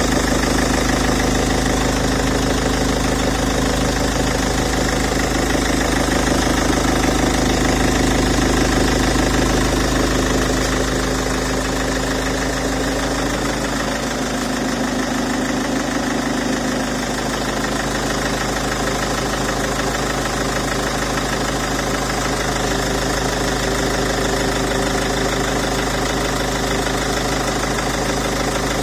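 Peugeot 407 2.0 HDi four-cylinder turbodiesel idling steadily with the strange engine noise its owner is asking about. About eleven seconds in, the deep hum eases off and the engine note grows slightly quieter.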